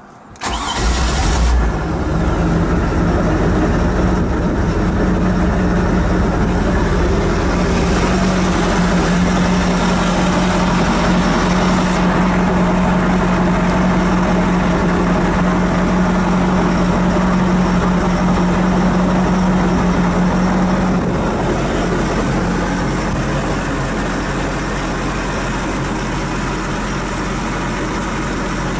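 A freshly rebuilt MerCruiser 350 Magnum (5.7 L small-block V8) inboard engine starts with a brief crank and catches almost at once. It then idles steadily, easing to a slightly lower, quieter idle about two-thirds of the way through.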